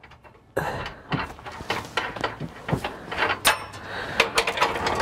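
Irregular metallic clicks, clinks and knocks of hand tools and bolts being worked on a truck's bumper brackets, starting about half a second in.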